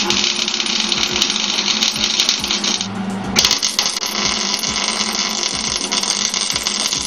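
Electric arc welding on steel battery-rack brackets: the arc's steady, dense crackle, which breaks off briefly about three seconds in and then starts again.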